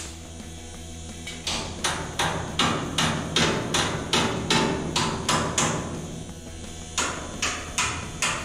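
Hammer tapping on the new sheet-metal header panel of a 1928 Ford Model A body: a run of about a dozen sharp taps, roughly three a second, a short pause, then a few more.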